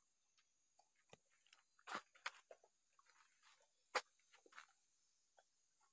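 Dogs eating rice from metal pots: faint chewing and crunching with scattered clicks, the sharpest about two seconds and four seconds in.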